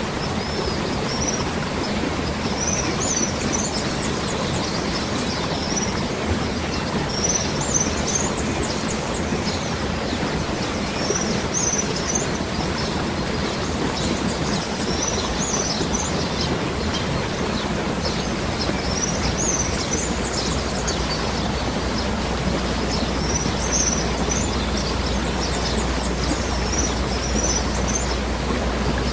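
Waterfall rushing steadily, with small birds chirping in short bursts every few seconds. A low rumble grows beneath the water in the last third.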